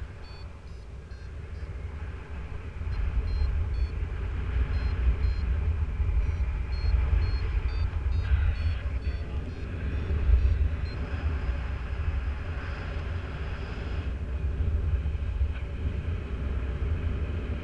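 Wind buffeting the microphone in flight, with a gliding variometer beeping in short high pips that step up and down in pitch, signalling the glider climbing in lift. About two-thirds of the way in the pips give way to a steady high tone for a few seconds.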